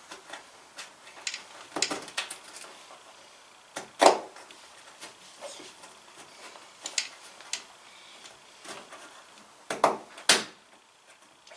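Irregular clicks and knocks of plastic hardware being handled and pushed into place while a mud guard's retaining clip and bolt are fitted at a pickup's wheel well. The loudest knock comes about four seconds in, with two more close together near the end.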